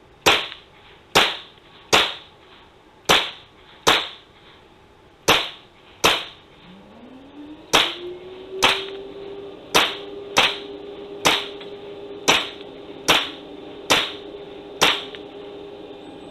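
Toy foam-dart blaster shots: about sixteen sharp snaps, each with a short ring, fired roughly one a second. About halfway through, a steady hum comes in, rising in pitch and then holding level.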